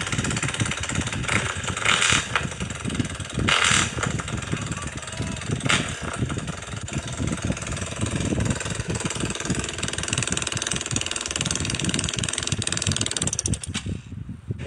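Tuned Yamaha Y15ZR 150 cc single-cylinder motorcycle engine running loudly, with uneven exhaust pulsing and a couple of brief surges in the first few seconds; the sound drops away near the end.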